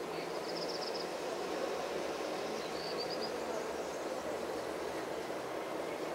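Steady outdoor background hum, with two short, high, rapidly pulsed chirping trills: one near the start and one about three seconds in.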